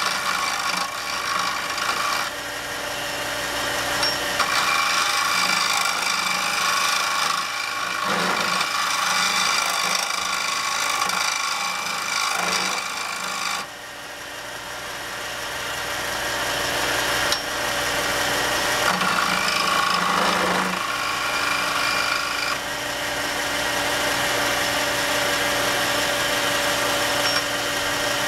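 Wood lathe spinning a wooden pen blank while a skew chisel cuts along it with a steady scraping hiss over the lathe's motor hum. About halfway through the cutting noise drops off suddenly as the tool comes off the wood, then builds back up as cutting resumes.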